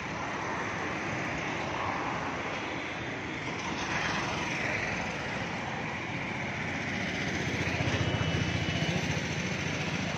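Road traffic: a steady wash of vehicles going by, with one passing about four seconds in and a close engine's low throb swelling near the end.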